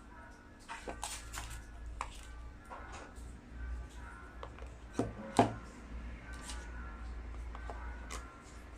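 Phone box and accessories being handled: scattered light clicks, taps and rustles, with two louder knocks about five seconds in.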